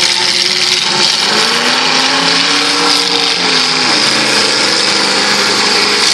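Demolition derby car engines running loud, one revving up and back down about a second to four seconds in.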